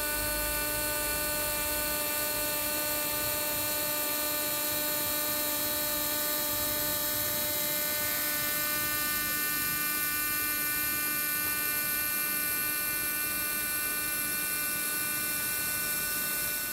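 CNC machine spindle whining steadily at a constant speed while an end mill takes a light finish pass around the outer profile of an aluminium plate.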